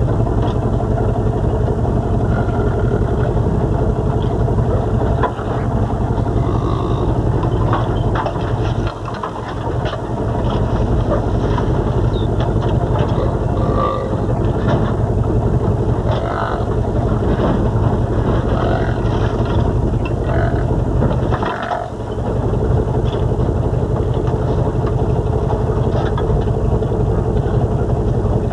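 A truck engine runs steadily as the truck drives along, with knocks and rattles over the low rumble. The engine note drops off briefly twice.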